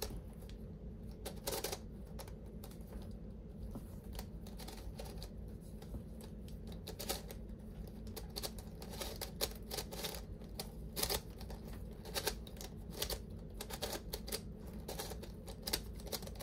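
Plastic pieces of a new Verypuzzle Speed Tuttminx twisty puzzle clacking as its faces are turned by hand: quick, irregular clicks, one after another. The puzzle is fresh out of the box and not yet lubed.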